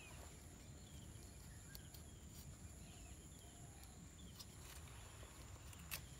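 Quiet garden ambience with a steady faint high whine and a few faint chirps, broken by a few soft clicks and one sharp snap near the end as a knife cuts through an okra stalk.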